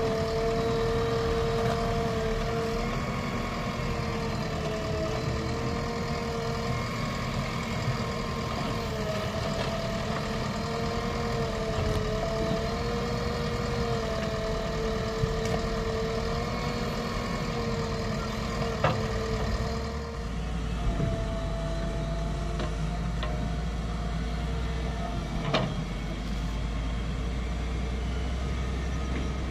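JCB 3DX backhoe loader working, its diesel engine and hydraulics running with a whine that dips in pitch and recovers every couple of seconds as the backhoe arm digs and lifts. About two-thirds of the way in, a deeper, steady engine rumble takes over. There are two short sharp knocks, one just before that change and one after it.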